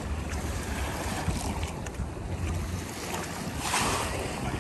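Wind buffeting the microphone as a steady low rumble over an even rush of outdoor noise, with a brief louder gust of hiss shortly before the end.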